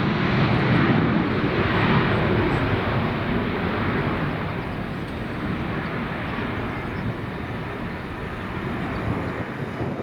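Airliner passing near the runway, its engine noise loudest at the start and slowly fading away.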